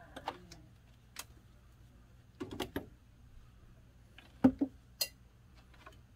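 Scattered clicks and light knocks of a multimeter and its test leads being handled at an open breaker panel before a voltage check. There is a small cluster about two and a half seconds in and the loudest clicks near four and a half to five seconds in, over a faint low hum.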